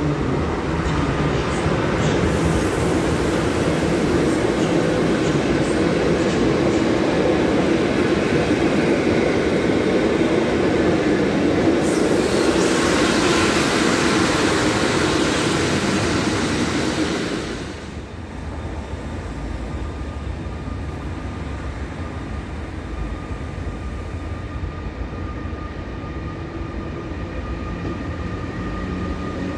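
A PKP Intercity passenger train hauled by an EU160 (Newag Griffin) electric locomotive rolls past, its coaches rumbling steadily over the rails. The noise grows louder and hissier for a few seconds about twelve seconds in. After about eighteen seconds it drops to a quieter, steady electric locomotive hum with a couple of steady whining tones.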